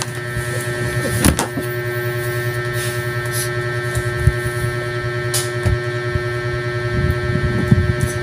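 A steady electrical hum made of several even tones, with a couple of short clicks and some faint rustling.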